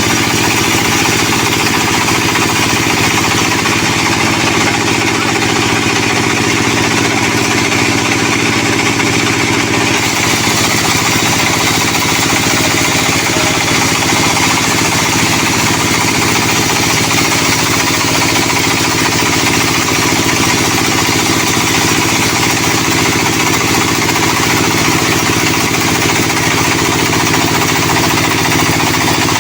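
Sawmill saw and its driving engine running steadily while sawing a sonokeling (Indian rosewood) log. The low tones shift about ten seconds in.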